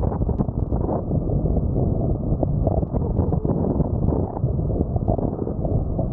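Wind buffeting the microphone of an onboard action camera on a pole while wingfoiling at speed: a steady, muffled rumble with the rush of water beneath.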